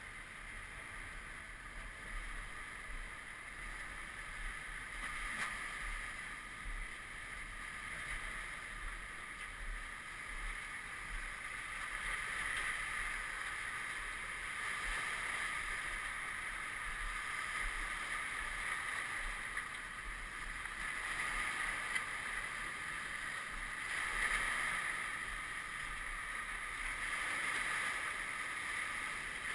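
Flood-high lake water lapping and sloshing at the shoreline, a steady hiss that swells and fades every few seconds, with a few faint knocks.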